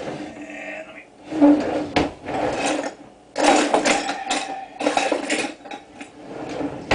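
Rummaging in a kitchen, things being shifted and knocked about in several short bursts while someone searches for something.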